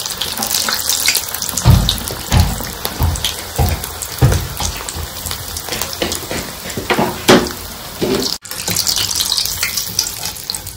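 Samosas deep-frying in hot oil in an aluminium kadai: a steady, dense crackling sizzle. Several dull thumps sound over the sizzle in the first seven or so seconds.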